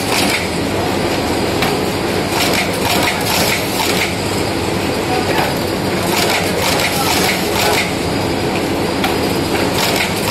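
Chetan automatic wire-stitching and folding machine running: a steady mechanical clatter, with sharper clacks every second or so as the wire-stitching head cycles on the notebooks.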